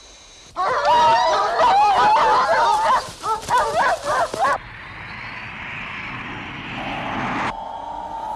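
Dogs barking and yelping, several calls overlapping, as search dogs are set on the trail of a hidden cat. After about four seconds the barking cuts off suddenly and a steady rushing hiss follows, with a low steady tone joining near the end.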